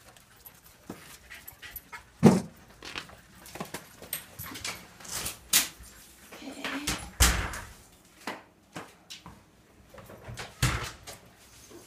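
A dog making short sounds among a run of knocks and rubbing from a jostled, handheld camera, with louder thumps about two, seven and ten and a half seconds in.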